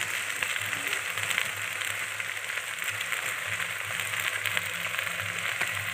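Country chicken pieces sizzling steadily as they fry in oil in a clay pot.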